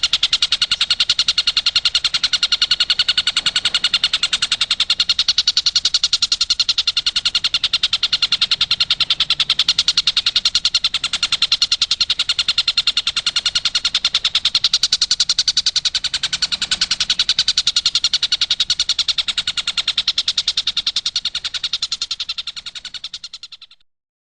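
Stork-billed kingfisher giving a rapid, unbroken rattling series of call notes, fading out near the end.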